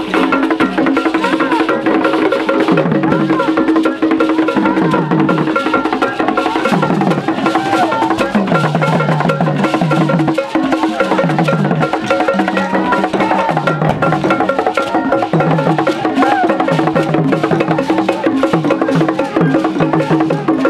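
Traditional Ghanaian drum music: barrel drums and a fast, dense clicking beat over a steady held tone, with low pitched notes moving in steps.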